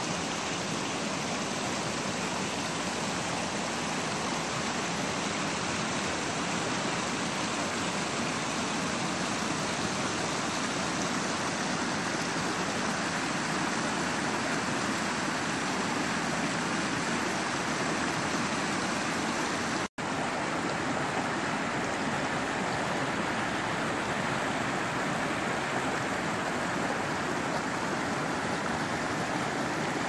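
Snowmelt creek rushing and splashing over rocks and small cascades, a steady, even rush of water. It cuts out for an instant about two-thirds of the way through, then carries on unchanged.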